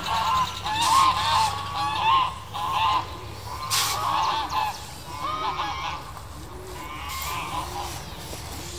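Domestic geese honking over and over, about two calls a second.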